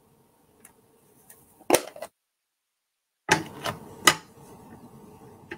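Hard plastic clicks and knocks from handling a clear acrylic stamp block and ink pad while inking a stamp. The sounds come in two loud clusters, the second holding a few sharp knocks, with the sound cutting out completely for about a second between them.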